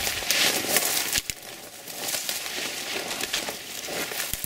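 Footsteps pushing through brush: dry twigs and leaves crunching and snapping underfoot, with many small cracks, loudest in the first second.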